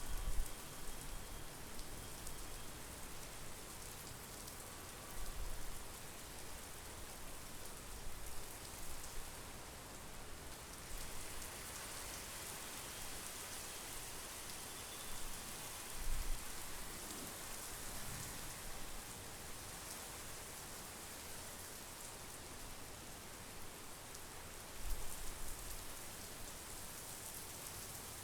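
Steady monsoon rain falling on a lake and trees, an even hiss of rainfall. A few brief low rumbles rise out of it now and then.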